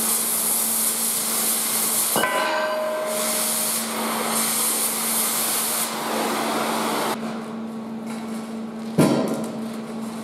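Plasma cutter cutting steel plate: a loud hiss that stops and starts, with a ringing metallic clank about two seconds in. Near the end a heavy clank as the steel stand is handled. A steady machine hum runs underneath.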